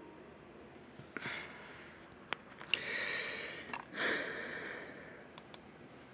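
A few soft breathy sounds, like breaths or sighs close to the microphone, with several light clicks in between.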